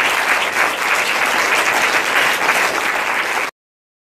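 Audience applauding, a dense patter of many hands clapping, cut off abruptly about three and a half seconds in.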